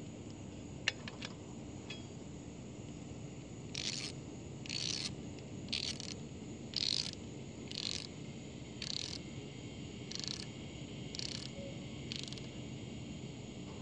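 A ratchet wrench with a 17 mm socket tightens a dirt bike's oil drain bolt, about nine short rasps of the pawl clicking, roughly one a second. A single sharp click comes about a second in.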